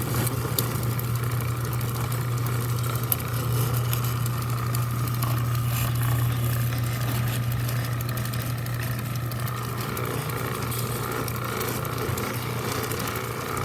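Stanley 1/4 hp chain-drive garage door opener running steadily as it lowers the door, a motor hum with the chain drive running along the rail.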